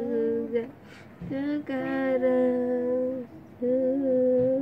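A voice humming a tune in long, steady held notes, broken by short pauses about half a second in and again about three seconds in.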